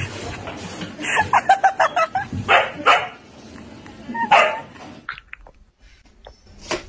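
A dog barking, a quick run of barks followed by several single barks.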